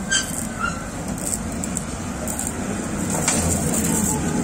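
Kiddie ride train rolling along its small track, growing louder as it comes up close, with a couple of faint clicks.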